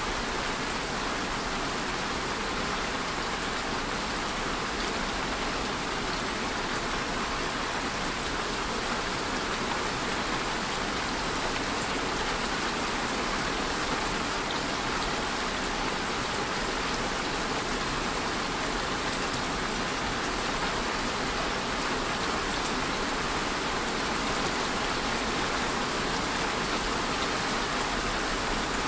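Steady rain falling on a surface, an even hiss of drops with no letup.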